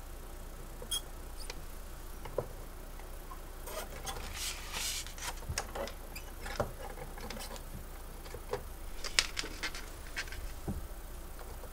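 Light handling noises as a strip of roll film is laid across a small light box and a clear acrylic sheet on plastic hinges is lowered onto it: rustling in the middle, then a few sharper plastic clicks and taps, the loudest about nine seconds in.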